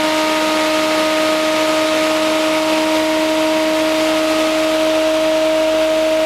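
Bedini-Cole ironless rotating magnetic motor running steadily at speed: a loud, even whine at one pitch with a few overtones over a rushing whir.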